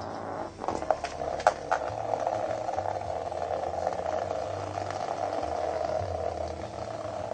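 Vibrating knock-off Hexbug Nano toy bugs buzzing steadily as they skitter across the bottom of a plastic laundry basket, with a few sharp clicks between one and two seconds in.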